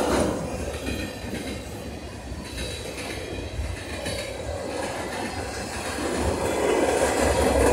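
Freight cars of a long freight train rolling past: tank cars, covered hoppers and gondolas, with steady steel-wheel rumble and rail noise that grows louder near the end.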